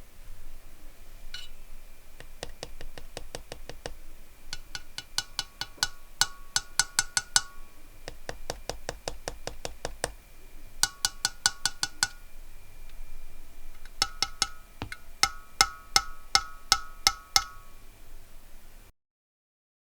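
Bursts of typing on a stock Keychron Q1 aluminium mechanical keyboard. Most keystrokes leave a metallic ping ringing behind them: the case ping of the unmodified Q1. Two of the bursts have no ringing.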